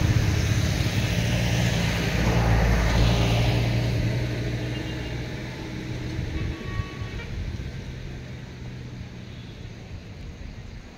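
A road vehicle's engine running close by, loudest in the first few seconds, then fading away as it moves off.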